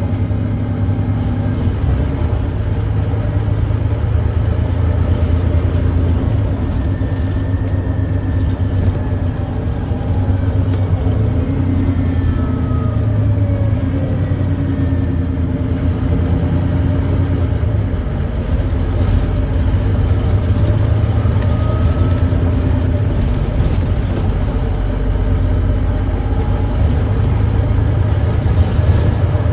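Volvo D9B 9.3-litre diesel engine of a Volvo B9TL double-decker bus, heard on board, running steadily under way with a low, constant drone and slight changes in pitch. The bus has an exhaust leak, and the engine thrashes.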